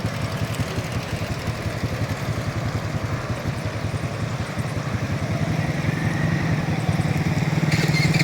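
An engine running steadily with a fast, even pulse, getting louder about five and a half seconds in.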